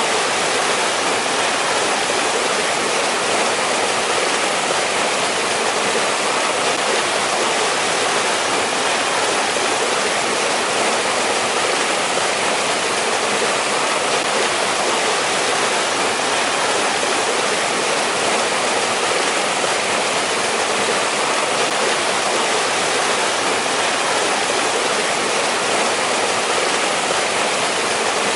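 Valley stream in winter, water rushing and splashing over rocks in a steady, even flow.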